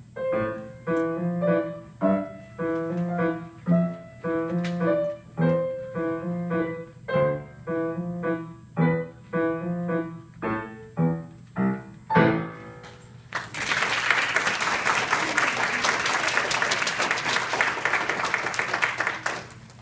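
Grand piano played in evenly spaced, detached notes and chords, ending about twelve seconds in. An audience then applauds steadily for the last six seconds.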